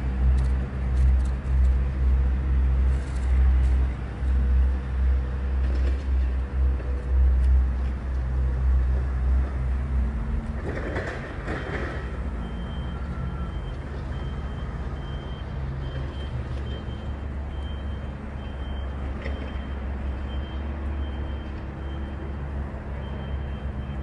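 Wind buffeting the phone's microphone: a loud, gusting rumble for about the first ten seconds that then settles into a steadier, lower rush, with a faint steady low hum underneath.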